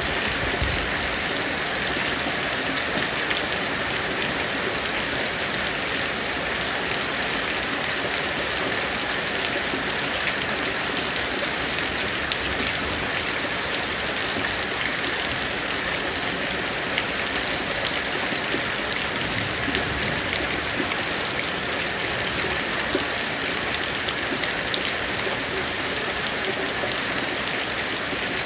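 Heavy rain falling steadily, a dense even hiss with many sharp drop ticks pattering on surfaces.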